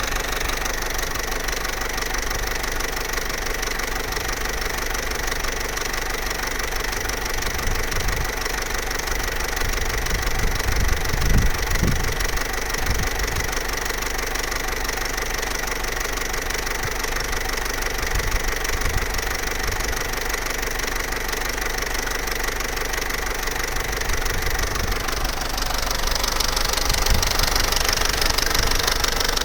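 Vauxhall Corsa C's Z14XEP 1.4-litre four-cylinder petrol engine idling with a timing chain rattle. The rattle is typical of a worn, stretched timing chain and is most pronounced when the engine is at full operating temperature. Near the end a louder hiss joins the idle.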